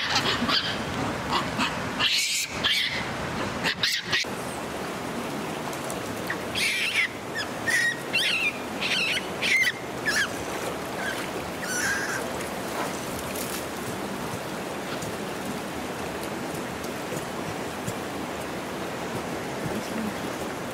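Steady rush of water flowing in a steaming hot spring pool, with a scatter of short high calls and chirps over it that die away about twelve seconds in.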